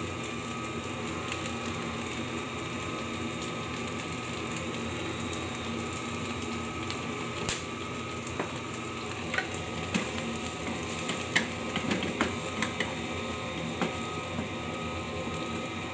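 Green beans and meat sizzling in a nonstick wok, stirred with a wooden spatula. Sharp knocks and scrapes of the spatula against the pan come through the second half.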